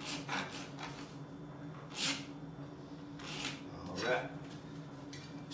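A few short scratches of a pencil drawing a mark on a laminate plank, over a steady low hum.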